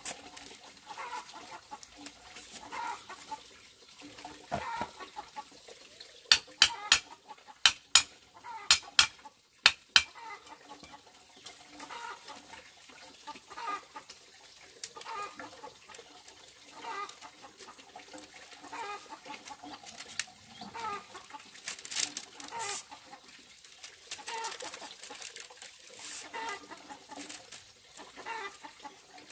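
Chickens clucking on and off throughout. Between about six and ten seconds in come about six sharp, loud clacks, split bamboo strips knocking together as they are woven into a mat.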